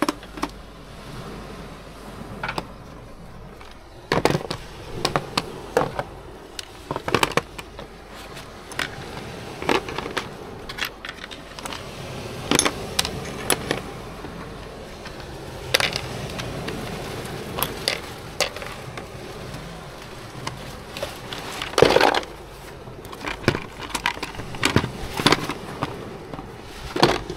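Irregular clicks, knocks and clatter of objects being handled and set down, with louder knocks now and then.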